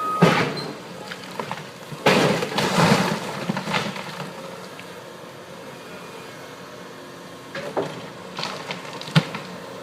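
Bridge demolition: an excavator breaking the structure apart, with loud crashing and cracking near the start and again from about two to four seconds in, then lighter clattering and a sharp crack near the end.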